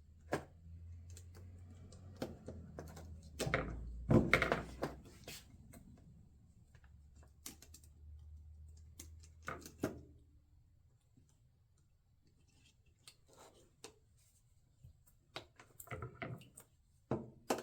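Irregular clicks, taps and knocks of hands working with tools and small parts, with a heavier clatter about four seconds in and quick tapping near the end. A low steady hum runs under the first ten seconds, then stops.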